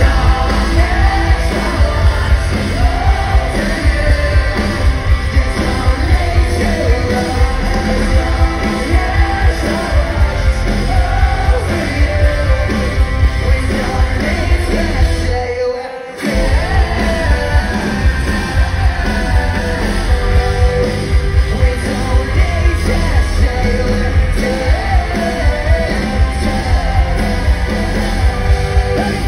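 Live rock band playing loud through a concert PA, with a singer's vocals over heavy bass and drums, picked up by a phone in the crowd. About halfway through the music drops out for a moment, then comes straight back in.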